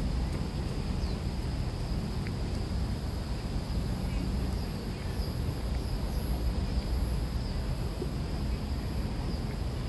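Outdoor park ambience: insects droning steadily at a high pitch over a steady low rumble, with a few short chirps.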